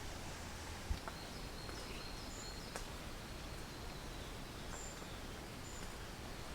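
Steady outdoor background hiss with a thin high steady tone and a few short high chirps, with a single soft low thump about a second in.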